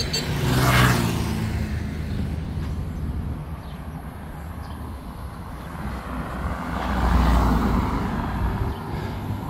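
Street traffic: a car passes close by about a second in, and a second vehicle with a deep engine rumble passes around seven seconds in.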